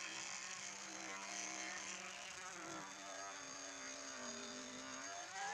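Small electric toy motor of a homemade drill running with a steady whine, its pitch wavering and slowly sagging as it bores under load, then rising sharply near the end as the load comes off.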